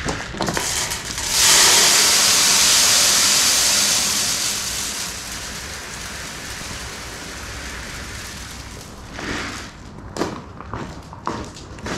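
Poultry feed pellets poured into a sheet-steel V-shaped hopper feeder: a steady rushing hiss that starts about a second in, is loudest for the first few seconds, then tapers off as the pour slows and ends. Near the end, a few footsteps crunching on gravel.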